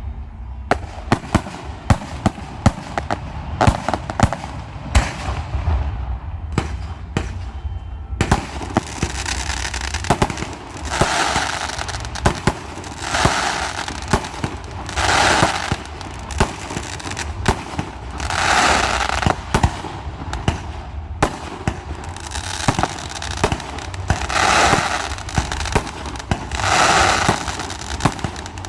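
Aerial fireworks bursting in quick succession: a rapid string of sharp bangs, then from about eight seconds in, swells of crackling about a second long come roughly every two seconds, with further bangs between them.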